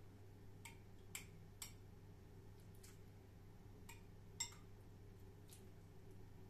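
A metal spoon clinking against a ceramic bowl while stirring a thin tomato and pepper paste sauce: about six faint, scattered clinks, the sharpest about four and a half seconds in, over a faint low hum.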